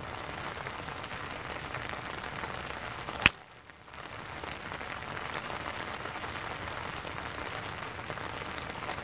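A golf club, a driver, strikes a ball off the tee with one sharp crack about three seconds in, over a steady hiss of rain.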